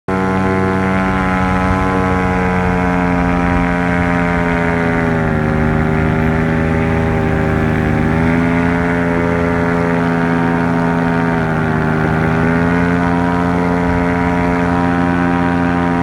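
Multirotor drone's motors and propellers humming steadily in flight, several pitches layered together, the pitch dipping and climbing back a few times as the drone changes speed or direction.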